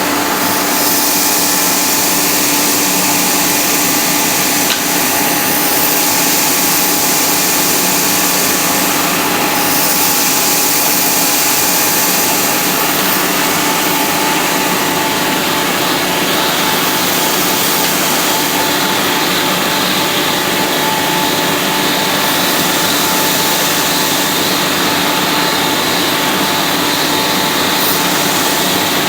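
Industrial central vacuum system running, a loud steady rush of air through the hose with a constant machine hum, while it picks up spilled grain and flour. The hiss brightens for a few seconds at a time now and then.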